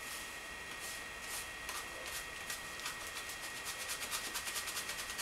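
Hand brush's bristles scratching back and forth over a gritty cellar floor: a few slow strokes at first, then from about three seconds in a quick, even run of strokes, about five a second.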